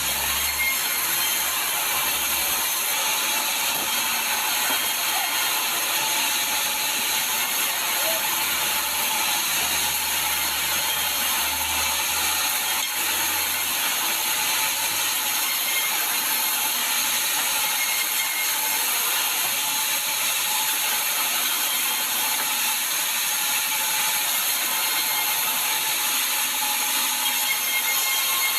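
Sawmill saw cutting through a sengon log: a steady, dense, high-pitched rasping noise that goes on without a break.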